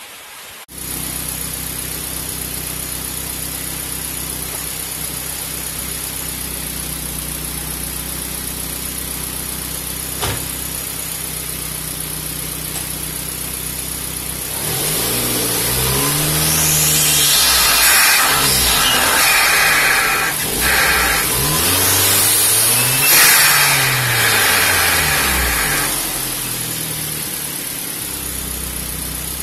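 Hyundai Genesis Coupe's 2.0-litre turbocharged four-cylinder idling steadily, then revved up and down several times while brake boosting, before settling back to idle near the end.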